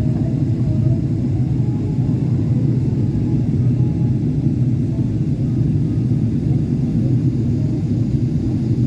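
Steady low rumble inside the cabin of a Boeing 777-300ER in flight: airflow and the GE90-115B engines heard from a window seat in the rear economy cabin.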